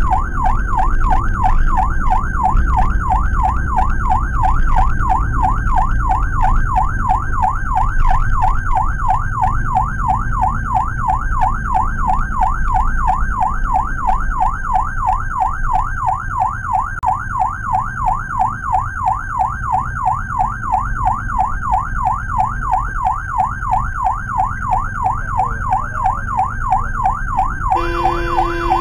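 Electronic ambulance siren in a fast yelp, rising and falling about three times a second, heard from inside a Suzuki APV ambulance's cabin over low engine and road rumble. A horn blast sounds near the end.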